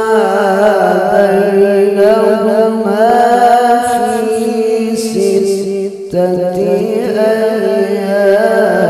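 A male qori's melismatic Quran recitation (tilawah) through a microphone: one long, held and ornamented vocal line with wavering turns, a short break about six seconds in, then the voice picks up again.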